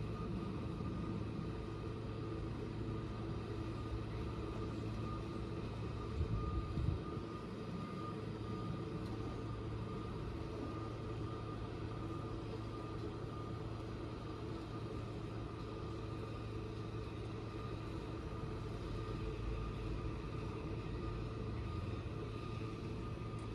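A steady mechanical hum, engine- or machinery-like, with a low drone and a few held higher tones. A brief low bump comes about six to seven seconds in.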